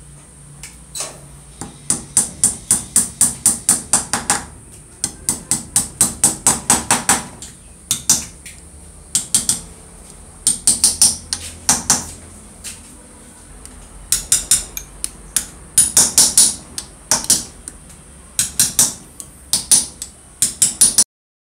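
Rapid light hammer blows on a metal punch, in runs of about five taps a second broken by short pauses, driving home the rivets that hold the nameplate onto the motor's housing.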